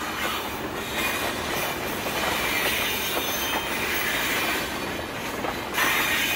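G-scale model train running on garden railway track: a steady rattling rumble of wheels and running gear, growing louder near the end.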